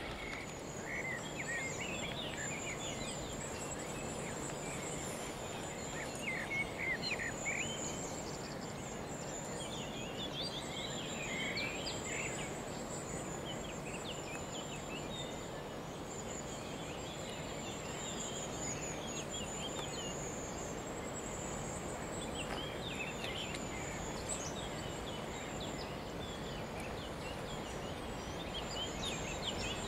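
Countryside ambience: birds singing in short scattered chirps over a thin, steady high trill and a low background rumble.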